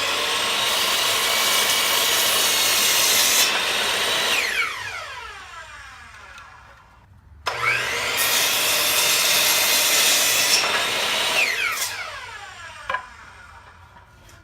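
Electric saw cutting wood boards twice. Each time the motor spins up, cuts for about four seconds, then winds down with a falling whine once the trigger is released.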